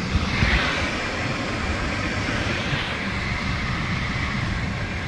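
Vauxhall Meriva engine idling with a steady rush of fan air over it, the rush swelling about half a second in and easing off near three seconds, as the car is run up to temperature to check the new thermostat.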